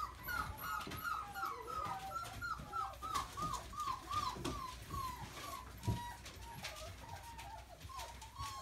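Golden retriever puppy whining: a quick run of short, high-pitched whimpers, about three a second, thinning out into fewer, longer whines over the last few seconds, with light clicks and rustling of toys.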